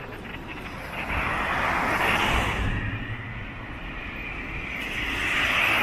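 Road traffic: cars passing one after another, tyre noise swelling and fading about two seconds in and again near the end, over a steady low rumble.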